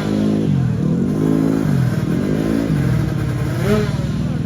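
Racing motorcycle engines at high revs, their pitch dropping and climbing again about three times.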